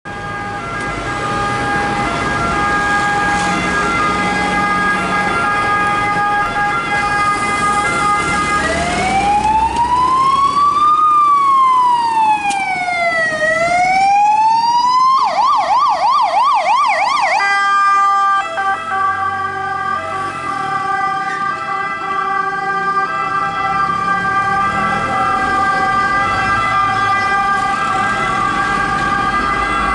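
Citroën Jumper III ambulance's electronic siren passing. A steady tone plays first; about nine seconds in it switches to a slow rising and falling wail, then to a rapid yelp for about two seconds, and then goes back to the steady tone.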